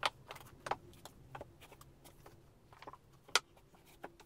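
Books being shifted and set down on a bookshelf: a few light knocks and shuffles, the loudest about three and a half seconds in.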